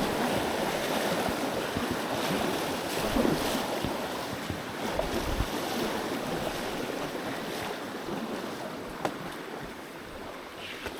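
Steady rushing noise, slowly fading over the stretch, with a few faint clicks.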